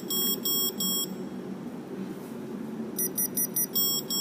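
Electronic alarm-style beeping. A quick run of short beeps is followed by three longer beeps, and after a pause of about two seconds the pattern repeats, all over a low steady hum.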